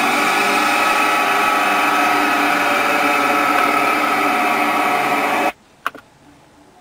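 Engine sound from a vehicle video played through the car's audio system, running steadily and then cutting off abruptly about five and a half seconds in when playback stops. Two sharp clicks follow half a second later.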